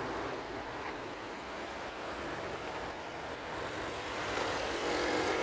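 Road traffic running past as a steady hum, with one vehicle's engine growing louder over the last second or so.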